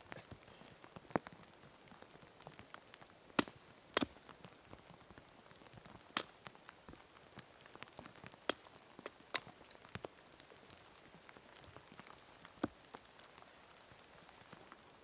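Rain: scattered heavy drops landing on a nearby surface in sharp, irregular ticks over a soft steady hiss of falling rain.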